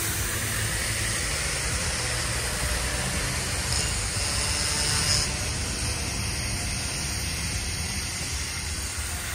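Steady outdoor city noise: a rushing hiss over a low rumble, swelling briefly about four seconds in.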